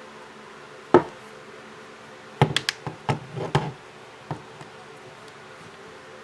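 Back cover of a Sony Xperia XA1 Ultra phone being pressed on, its clips snapping into place: a loud click about a second in, then a quick cluster of clicks and knocks, and one more click a little later.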